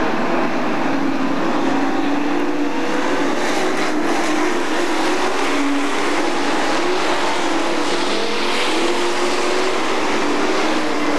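Several super stock dirt track race cars running at racing speed, a loud, steady mix of engines whose pitches rise and fall as the cars go around the track.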